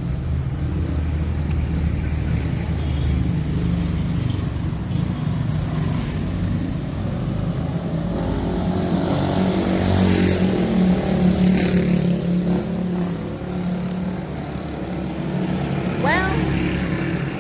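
Street traffic: vehicle engines running close by. A short high squeak rises in pitch about sixteen seconds in.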